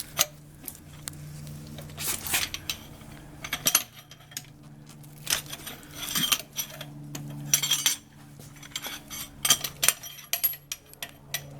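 Irregular metallic clinks and knocks of a car's factory jack handle and its extension bar being fitted and worked.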